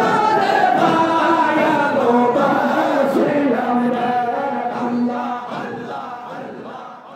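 A large group of men chanting a Sufi devotional zikr song together, many voices in one wavering melody. The sound fades out gradually over the last few seconds.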